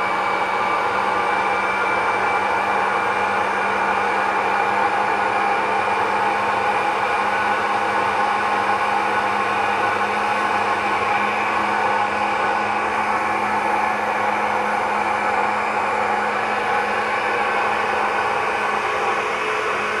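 Mallory Magnific 800 W blender running steadily, its motor blending oil, eggs and chopped carrot into a liquid carrot-cake batter in its glass jar.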